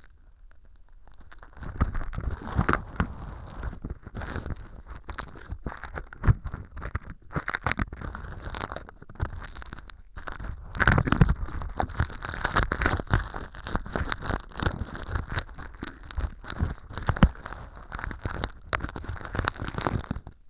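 Earpick scraping and crunching through mock earwax made of styrofoam powder and sawdust inside a transparent ear-canal tube, close to the microphone. It is a dense run of crackles and crunches, quiet for about the first second, with the loudest bursts near the middle and again late on.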